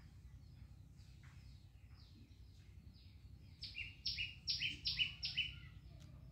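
Songbirds calling: faint short falling chirps throughout, and past the halfway point one bird gives a run of about five loud, quick notes, each stepping down in pitch.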